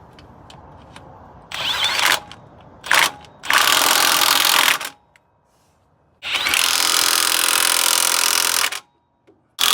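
Impact wrench running in five bursts, the longest about two and a half seconds, driving in the 16 mm mounting bolts of a new alternator.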